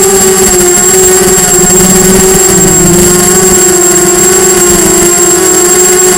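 Diatone Blade 250 quadcopter's electric motors and propellers whining steadily, heard very close up from the onboard camera. A thin high tone sits above the whine. The pitch sags a little about halfway through and then climbs back as the throttle changes.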